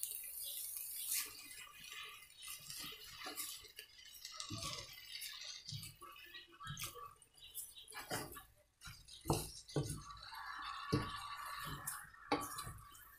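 Cooking utensil stirring and tossing rice noodles and vegetables in a wok, with irregular knocks and clinks against the pan.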